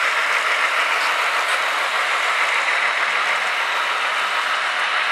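Electric model trains running on the layout track: a steady whirring rush of small motors and metal wheels rolling on rail as a train of locomotives and flatcars passes close by.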